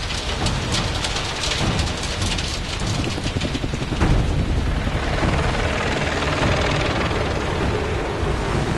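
A rainstorm with a heavy low rumble of thunder. Sharp crackling strokes come thick in the first few seconds, with a stronger crack about four seconds in, then a steadier rush of rain.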